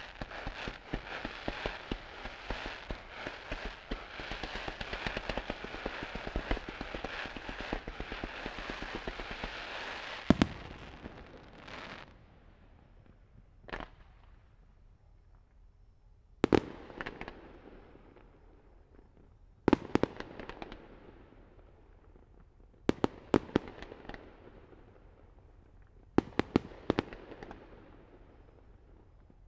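Fireworks display: a dense, continuous crackling and fizzing for about the first ten seconds, then a loud bang. After a lull, single and clustered sharp bursts follow every few seconds, each trailing off in a fading echo.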